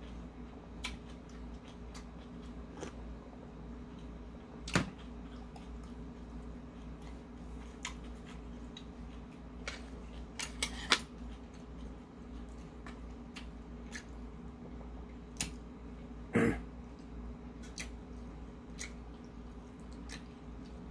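A person chewing a mouthful of bulgogi and rice, with scattered small wet mouth clicks and smacks. There are a couple of louder sharp knocks or smacks about five seconds in and again past sixteen seconds, over a steady low hum.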